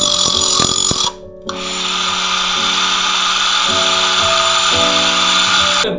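Homemade angle grinder (a 12 V DC motor driving an abrasive cutting disc) running and grinding against a steel rebar, a steady high grinding hiss that breaks off briefly about a second in.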